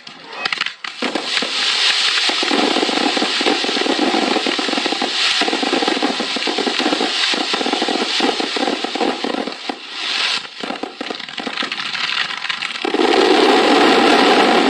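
Fireworks bursting and crackling densely in a continuous barrage, swelling louder about two seconds in and again near the end.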